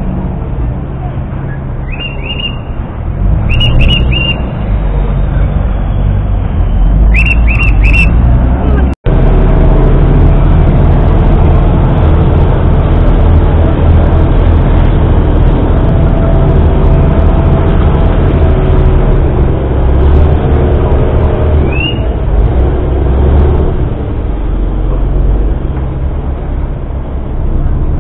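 Express river boat's engine running with a loud, steady low rumble. Short, high whistle blasts come in quick groups of two or three during the first eight seconds and once more near the end.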